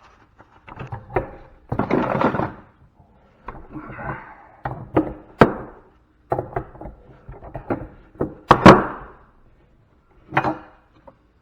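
A series of irregular sharp knocks and clanks of tools striking and prying at metal scrap parts as a piece is worked loose, with two hard blows about halfway through and one more near the end.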